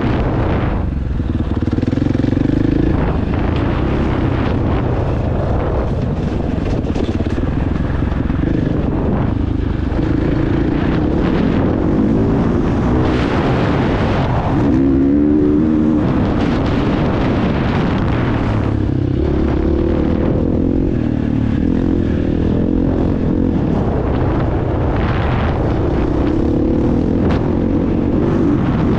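Motocross bike engine revving hard, its pitch rising and falling again and again as the rider works the throttle around the track.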